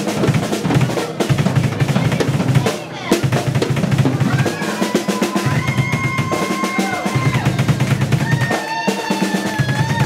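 Live drum kit solo: rapid snare rolls and fills over fast bass drum beats, with held high tones sounding over the drumming in the second half.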